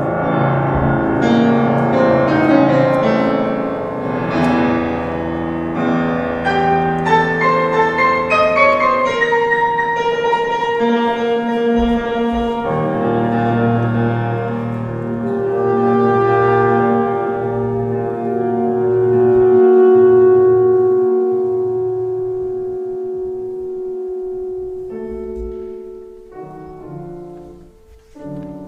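Saxophone and Steinway grand piano playing a classical piece. A busy run of piano notes fills the first half, then long held notes swell around the middle and fade toward the end.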